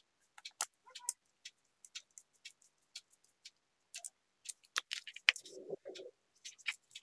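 Irregular small clicks and ticks of electronic parts being handled: jumper wires and plastic connectors knocked together and a small screwdriver working the screw terminals of an L298 motor driver module. A brief low rubbing sound comes about two-thirds of the way in.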